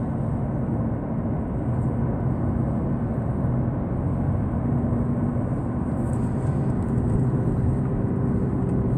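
Steady rumble of a car in motion, heard from inside the cabin: tyre and engine noise with a faint low hum, unchanging throughout.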